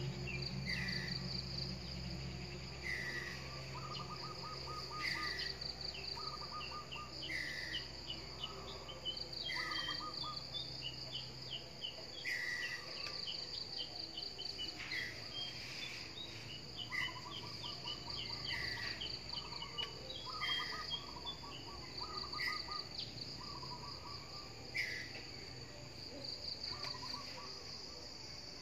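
A tree squirrel giving short falling alarm calls, one about every one and a half to two seconds. Behind them runs a steady pulsing insect trill, with bursts of bird trills.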